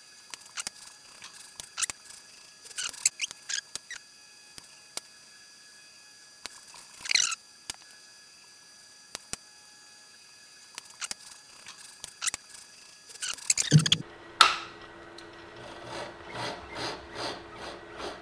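Pen of an HP 7035B X-Y recorder scratching and squeaking across the paper as the servo-driven carriage moves it, with scattered sharp clicks. In the last few seconds the sound becomes a regular back-and-forth stroking, about two to three strokes a second, as the pen draws hatching lines.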